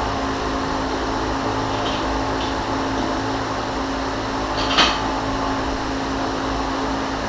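Steady machine hum with a constant low drone and one steady tone. A single sharp knock comes about five seconds in, with two faint clicks before it.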